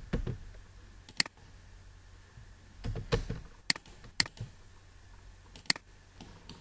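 Computer mouse and keyboard clicks: four sharp clicks spread a second or more apart, with two dull low thumps, one at the start and one about three seconds in.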